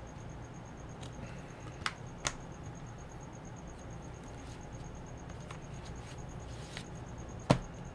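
Plastic Blu-ray cases and cardboard slipcovers being handled, with a few sharp clicks: two light ones about two seconds in and a louder one near the end, over a low steady room hum.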